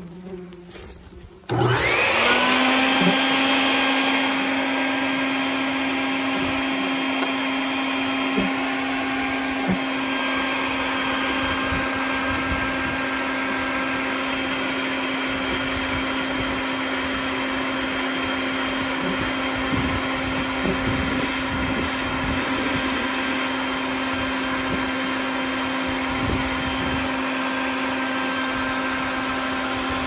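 A vacuum motor switches on about a second and a half in, spinning up quickly and then running steadily while its hose sucks wasps from the entrance of a paper nest. Faint wasp buzzing comes before the motor starts.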